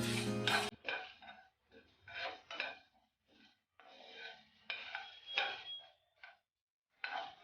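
A spoon or spatula stirring and scraping whole spices dry-roasting in a pan, in short irregular strokes with pauses between them. Under a second in, a louder passage with steady tones cuts off.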